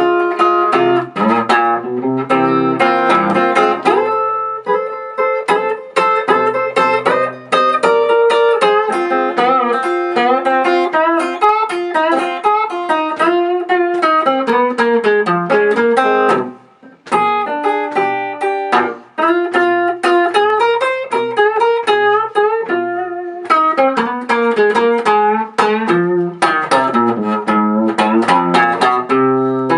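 Blues guitar playing an instrumental break between sung verses: picked single-note runs over a low accompaniment, with some notes bent or slid in pitch. There is a short pause about sixteen seconds in.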